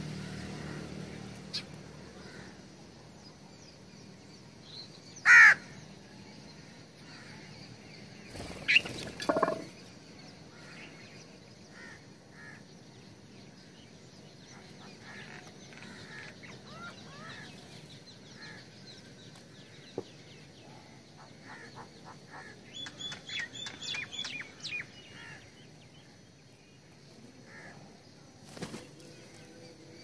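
House crows at feeding dishes: one loud caw about five seconds in, wing flaps around nine seconds and again near the end, and a few short, high chirps from small birds in between.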